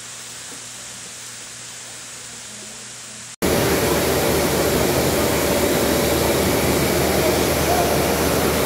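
Steady hiss of heavy rain. About three and a half seconds in it cuts suddenly to the much louder rushing of floodwater pouring through a yard.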